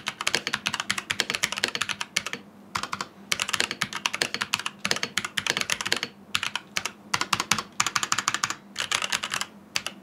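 Typing a sentence on an ASUS ROG Falchion NX 65% mechanical keyboard with ROG NX Brown tactile switches: fast runs of key clicks with short pauses about two and a half seconds in, about six seconds in, and near the end.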